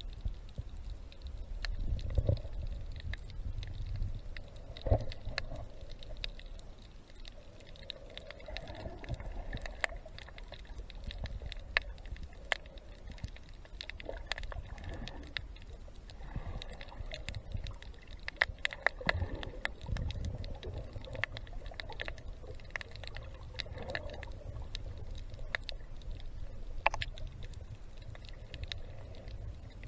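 Underwater sound picked up by a snorkeler's camera: a low rumble of moving water with many scattered sharp clicks and crackles, and a hazy swell every few seconds.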